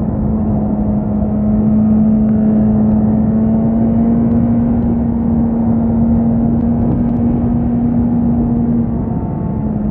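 Suzuki GSX-S 1000 inline-four engine running at steady revs while riding, holding one even pitch; the revs ease off slightly about nine seconds in.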